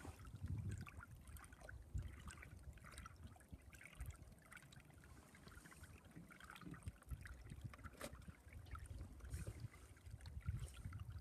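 Small waves lapping and trickling against a boat's hull in short irregular splashes, with gusts of wind buffeting the microphone.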